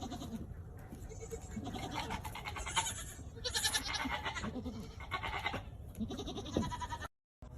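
Young goat kids bleating, a series of pitched bleats about one a second, cut off suddenly near the end.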